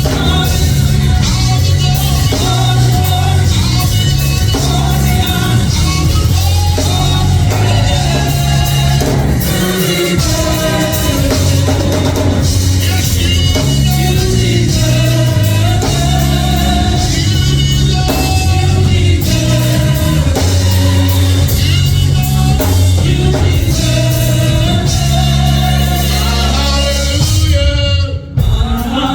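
Gospel music: singing over a band with a steady beat and a heavy, stepping bass line. It breaks off briefly near the end, then carries on.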